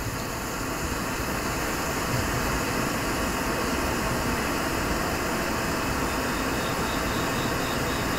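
Glassworking bench torch running with a large flame, giving a steady rushing hiss that grows slightly louder in the first couple of seconds.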